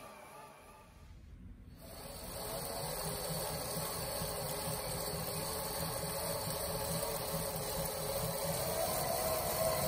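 XCADEY ZEE smart trainer running as the bike is pedalled, the rear tyre spinning on its roller: a steady whirring whine with a wavering pitch. It cuts out briefly about a second in, then comes back and grows louder.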